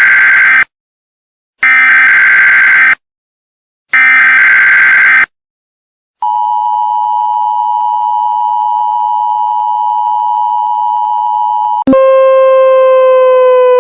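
Emergency Alert System alarm: three loud, buzzy SAME header data bursts about a second apart, then the two-tone attention signal, a steady high beep held for about five and a half seconds. About twelve seconds in it switches to a lower, buzzy tone that slides slowly down in pitch.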